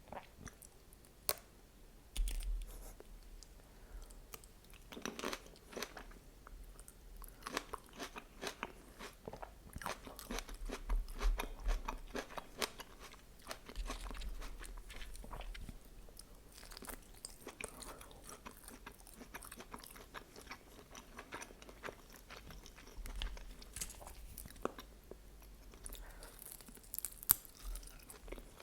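A person chewing and biting chicken lula kebab with vegetables close to the microphone, with wet, crunchy clicks and crackles of mouth sounds throughout and a few louder crunches.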